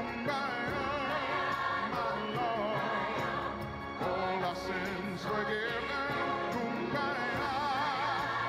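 A solo singer holding long notes with a wide vibrato over a sustained accompaniment, performing a religious song.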